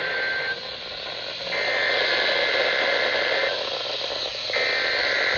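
NOAA Weather Radio SAME alert-header data bursts, heard as harsh two-tone digital warbles through a static-filled receiver. One burst ends just after the start, a full burst of about two seconds follows about a second later, and a third begins near the end. They encode a Required Weekly Test alert.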